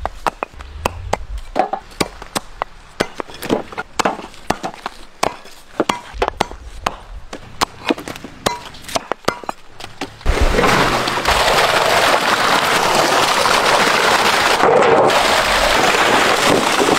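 Knife blade chopping the roots and stalks off palmyra sprout tubers against a wooden block: quick, irregular, sharp knocks and cracks, several a second. About ten seconds in, a steady loud rushing noise takes over.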